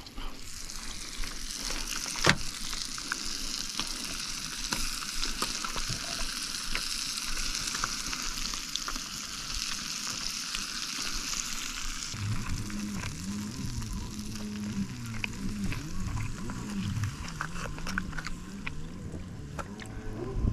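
Pieces of kokanee salmon sizzling as they fry in a small pot on a Primus gas canister stove, stirred with a wooden spoon. There is one sharp click about two seconds in, and a low wavering hum joins in over the last third.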